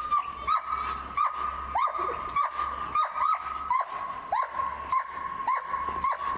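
Long-haired German shepherd barking in short high yips, about two a second, over a continuous high-pitched whine.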